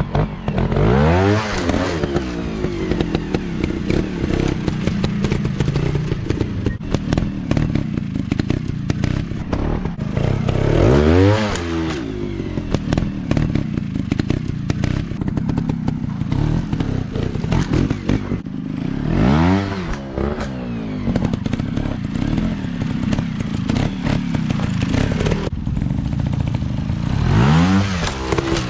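Off-road dirt bike engines running with a rough, clattery idle, revved up and back down four times, roughly every eight to nine seconds.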